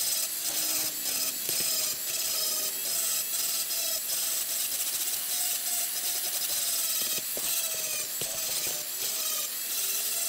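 High-speed rotary tool with a sanding drum grinding inside the aluminium intake port of a motorcycle cylinder head, smoothing out a casting flaw: a steady whine that wavers in pitch over a rough grinding hiss as the drum bears on the metal.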